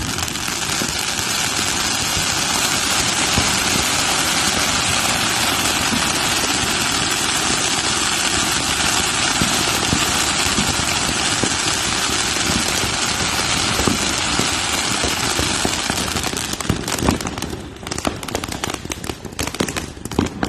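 Firework going off with a dense, steady hiss and crackle for about sixteen seconds, then dying down near the end to scattered separate pops and crackles.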